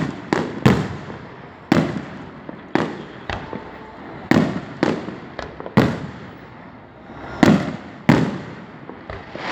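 Aerial fireworks shells bursting overhead: about a dozen sharp booms at uneven intervals, each with a deep thump and a fading echo.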